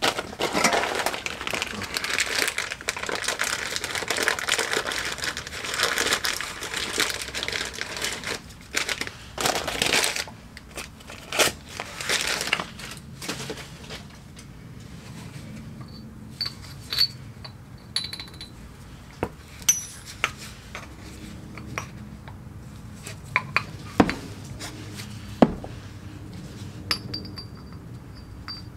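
Workshop handling noises: about ten seconds of dense rustling and rattling, then scattered metal clinks and knocks, some with a short high ring, as tools and parts are handled.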